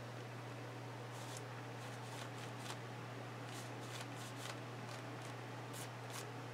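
A hand and fingers rubbing wet paint across a paper book page, making a dozen or so short, soft swishing strokes at an uneven pace over a steady low hum.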